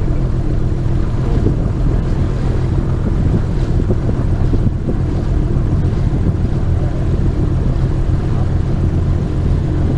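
Lake Renegade LA-250 amphibian's six-cylinder engine and pusher propeller running at a steady drone, heard inside the cabin while the hull runs across the water, with a rush of wind and water along the hull.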